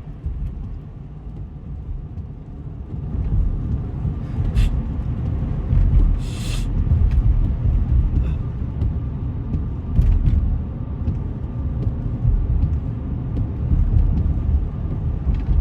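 Steady low rumble, with a short hissing sound about six seconds in and a few faint clicks.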